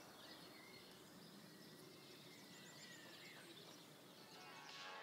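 Near silence: faint outdoor ambience with a few faint bird chirps. Music begins to fade in near the end.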